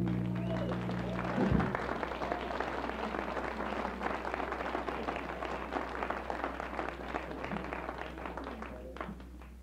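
The last chord of a guitar-and-bass band number rings out and ends with a final low hit about a second and a half in, then an audience applauds, the clapping dying down near the end. A steady low hum runs underneath.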